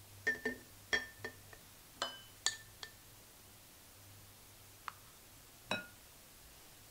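Glass clinking as a glass pouring jug knocks against the rim of a glass jar and a wooden spoon is wiped along its spout. About eight small ringing clinks come in a quick, uneven run over the first three seconds, then two more near the end.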